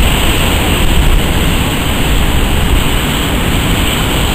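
Large storm-swell waves breaking and whitewater surging in heavy surf: a loud, steady rushing noise with a deep rumble underneath.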